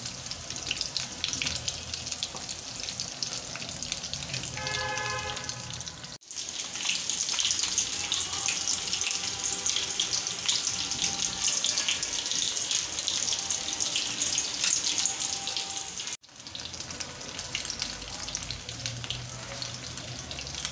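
Batter-coated Bombay duck fillets deep-frying in hot oil: a steady, crackling sizzle. The sound drops out briefly about six and sixteen seconds in, and the sizzle is louder between those two breaks.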